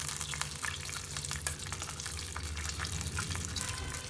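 Soaked basmati rice being poured from a steel bowl into water heating in a steel kadhai, over a steady crackle of many small clicks from the pan and a low hum.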